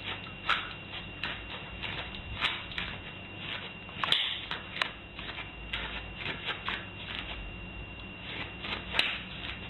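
A small terrier's paws and claws stepping and scratching on a bristly doormat: a string of light, irregular clicks and scratches.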